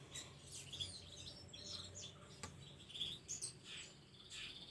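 Faint chirping of small birds: short high notes scattered throughout, with one soft click about halfway through.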